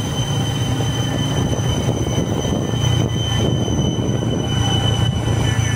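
Motorbike engine running steadily while riding along a rough paved road, with a steady high whine over it.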